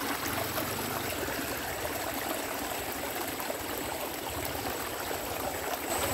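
Steady trickling and running of water in a small ditch stream.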